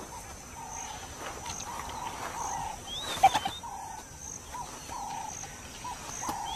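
Wild animal calls: a short call repeats about once a second, and a brief sharp squeak cuts in about three seconds in.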